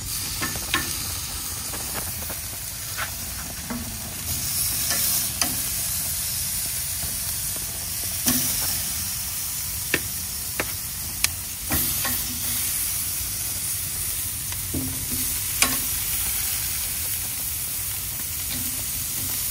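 Food sizzling as it cooks, a steady hiss, with scattered sharp clicks of a cooking utensil as the food is stirred.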